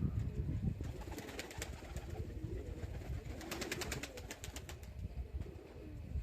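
Pigeons cooing, over a low rumble of wind on the microphone, with a quick run of ticks about three and a half seconds in.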